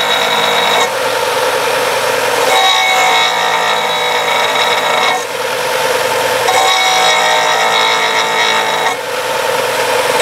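Ryobi disc sander running while a cured resin egg is pressed against the spinning abrasive disc to grind facets into it. The sound switches every couple of seconds between a steady motor whine and a harsher grinding rasp.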